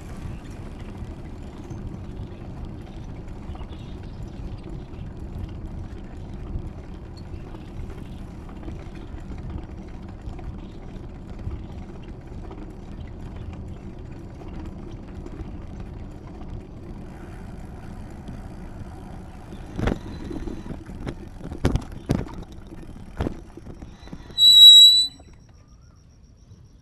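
Steady low rolling rumble of a bicycle ride on a paved path, with a few sharp clicks, then a loud, high brake squeal lasting about half a second as the bike comes to a stop, after which the rumble is gone.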